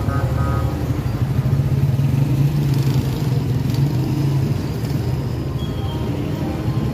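A motor vehicle engine running close by in street traffic, a steady low rumble.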